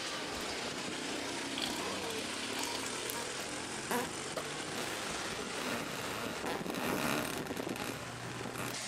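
Steady outdoor city noise of road traffic, with a couple of short knocks.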